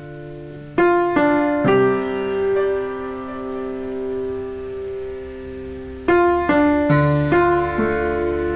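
Background piano music: a slow phrase of single struck notes that ring on, a group of three near the start and another run of notes about six seconds in.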